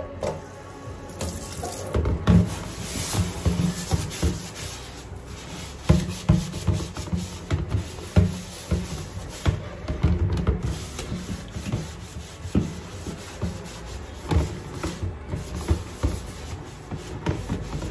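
Soapy water sloshing and splashing in a plastic washbasin as it is scrubbed out by hand, with irregular knocks of the basin throughout.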